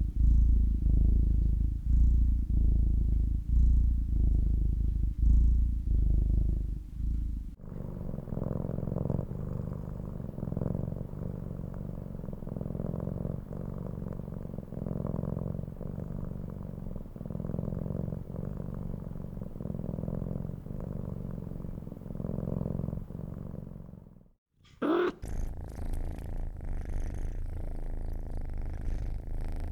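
Domestic cats purring: a deep, steady purr that swells and eases with each breath, about once a second. It switches abruptly to a different, lighter purr about eight seconds in. Near the end it breaks off briefly and a third purr follows, with a short sliding sound as it changes.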